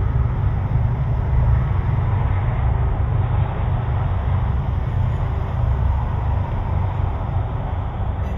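Steady low rumble of outdoor street noise picked up by a doorbell camera's microphone.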